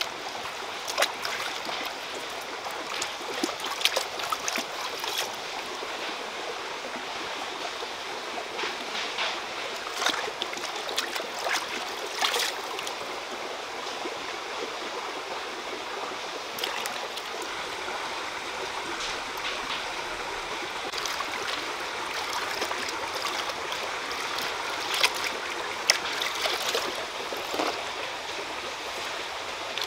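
Shallow stream running steadily over rocks, with scattered short splashes as hands rinse greens in the water.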